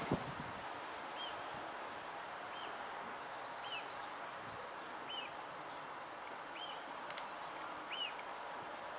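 Outdoor ambience of steady wind and rustling, with a small bird repeating a short high chirp about every one and a half seconds and giving a couple of quick trills. A dull thump comes right at the start.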